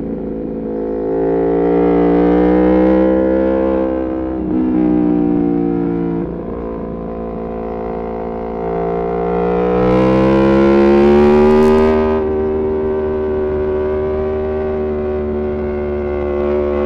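Aprilia Tuono V4 Factory's V4 engine through an Arrow GP2 exhaust with the dB killer removed, running hard on track. Its pitch rises and falls with short breaks at gear changes, then makes one long loud climb about halfway through before settling.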